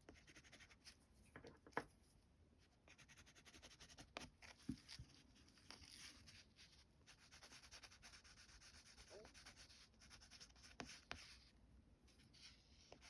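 Faint scratching and rubbing of a water-soluble wax pastel crayon (Caran d'Ache Neocolor II) worked over very rough cotton rag paper, with a few light clicks and taps.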